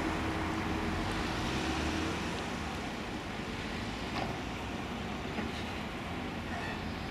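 Alstom Citadis 402 tram moving at low speed through a street-level stop, its quiet running over steady urban traffic noise. A faint low hum stops about two seconds in, and there is a small click about four seconds in.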